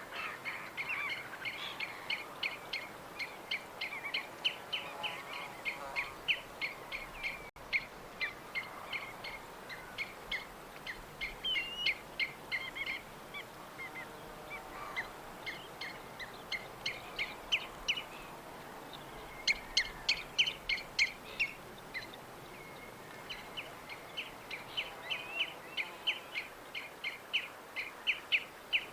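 Small birds chirping in quick, short, repeated notes, several overlapping, with a louder run of sharp chirps about twenty seconds in.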